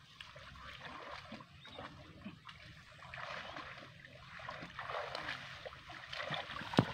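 Water splashing and trickling as a man wades waist-deep and hauls a fishing net through the shallow water, with a sharp click near the end.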